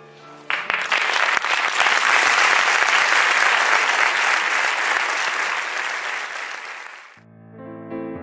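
Audience applauding, breaking out about half a second in and dying away after about seven seconds. Piano music starts near the end.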